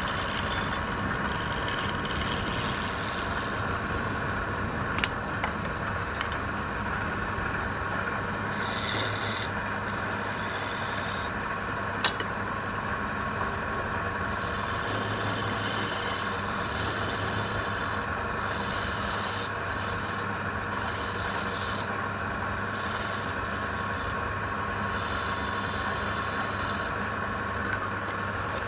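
A machine hums steadily throughout, while wood is rubbed or rasped in stretches that come and go, with a few sharp clicks.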